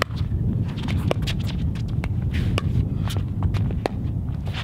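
Pickleball rally at the net: paddles popping sharply against the plastic ball every half second or so, with sneakers scuffing on the hard court, over a steady low rumble.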